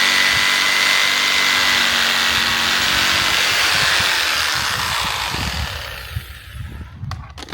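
Electric power saw running steadily as it trims a sliver off a wooden bed board, then winding down about five seconds in. A few light knocks near the end.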